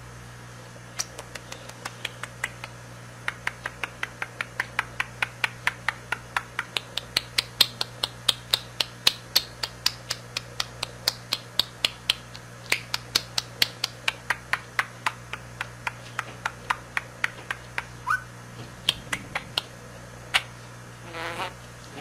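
Budgie making a long run of sharp clicks, about three or four a second, whose pitch rises and falls; near the end it breaks into short chattering calls as it starts to talk. A steady low hum runs underneath.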